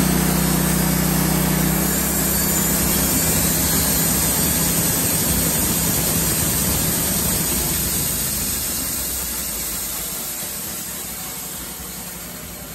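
Log Father LF2236 band sawmill running: a steady engine note that turns rougher and noisier about two seconds in, then fades away over the last few seconds.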